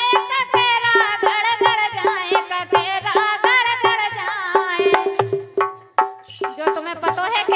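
Bundeli folk song: a woman singing over a harmonium, with a steady hand-struck percussion beat about three to four strokes a second that drops out briefly partway through.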